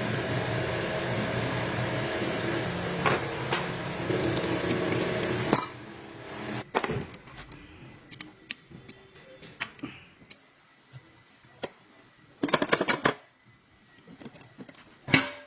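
A machine running with a steady hum that cuts off suddenly about five and a half seconds in, followed by scattered clicks and knocks and a short clattering burst near the end.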